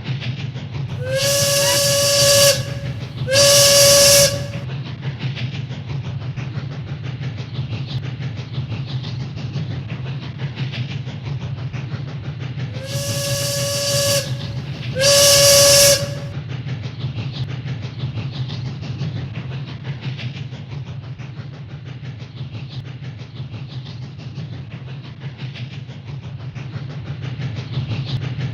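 Steam whistle blown in two pairs of short toots, the pairs about ten seconds apart, each toot a held hooting tone with a rush of hiss. Underneath runs the steady low rumble of a train.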